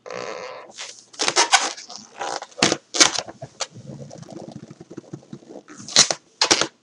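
Hands handling and rubbing a large blue balloon, giving a series of short, irregular rubbing noises, some of them loud.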